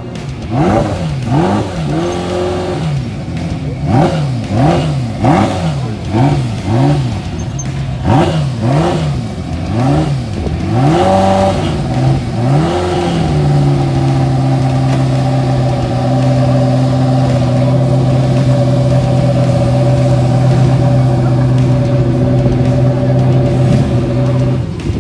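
A parked Ferrari's engine is revved in quick repeated blips, a little more than one a second. About halfway through it settles into a steady idle.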